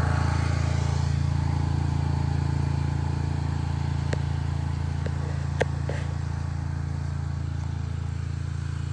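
Lawn mower engine running steadily, a low even hum. A couple of short sharp clicks come through it about four and five and a half seconds in, the second the sharpest.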